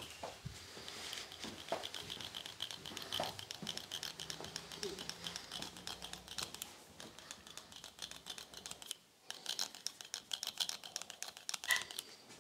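Chrome manual hand clipper cutting beard stubble: rapid, uneven metallic clicking as the blades snip, with a short pause about nine seconds in.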